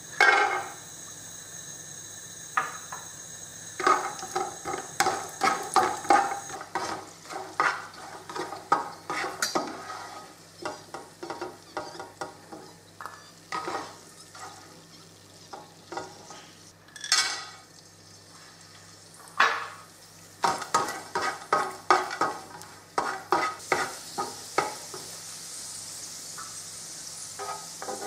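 Cashew nuts and then raisins frying in ghee in a nonstick pan: a sizzle, with a plastic slotted spatula scraping and tapping the pan in quick clusters as they are stirred.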